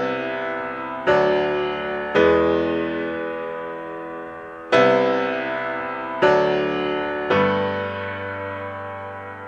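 Background music: slow piano chords, each struck and left to fade, about six of them a second or two apart.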